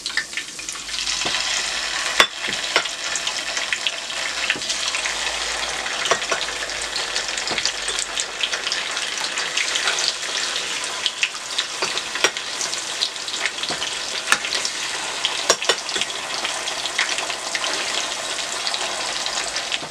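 Raw seasoned chicken pieces frying in hot oil in a pan: a steady sizzle that fills in about a second in as the pieces go in, with frequent sharp crackling pops.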